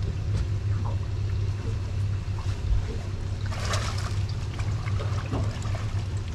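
Water trickling steadily over a low, even hum, with a brief splash about three and a half seconds in as a snook is released over the side of the boat.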